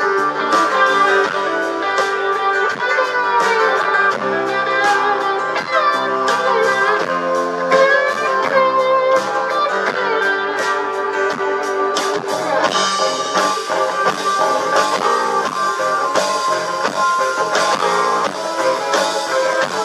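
Live rock band playing an instrumental passage, electric guitar lead with bending notes over strummed acoustic guitar, bass and drums. The sound turns brighter about twelve seconds in.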